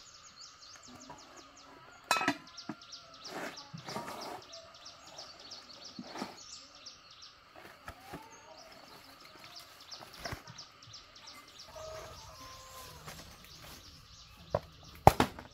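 Metal cooking pots and lids knocking and clinking as they are handled and packed into a woven bamboo basket, a handful of separate clanks, over steady high chirping in the background. Near the end comes a sharp double knock, the loudest sound.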